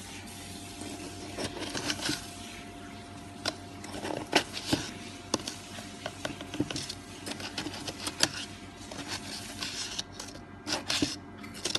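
Irregular light clicks and knocks, a few every second, with the loudest about four seconds in and again near the end, over a faint steady hum.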